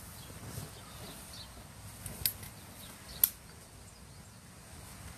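Quiet outdoor background with two sharp clicks about a second apart, near the middle, from a phone being handled while it films.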